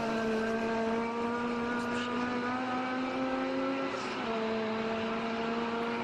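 Honda K20 2.0-litre inline-four engine held at high revs. Its note stays steady and drops slightly in pitch about four seconds in.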